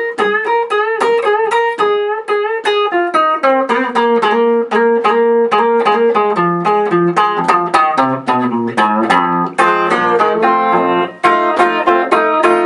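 A single guitar playing a blues instrumental passage between sung lines: quickly picked notes and chords, with bent notes in the first couple of seconds.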